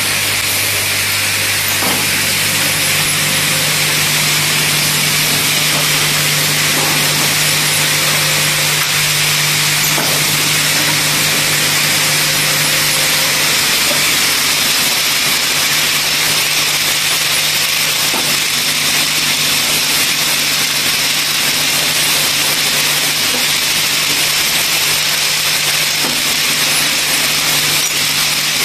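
Automatic orbital tube-cutting and countersinking machine running steadily on copper tube, with a steady hum from its electric motors and faint knocks every few seconds.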